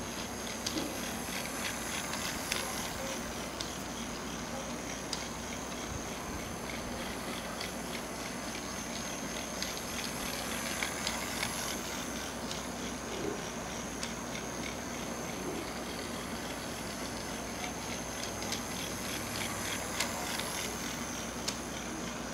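Battery-powered toy high-speed train running round plastic track: a steady whir from its small motor with a thin high whine, and scattered light clicks and rattles from the wheels on the track.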